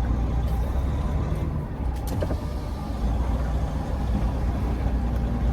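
Semi truck's diesel engine running steadily with a low hum, the truck moving slowly around a truck stop lot.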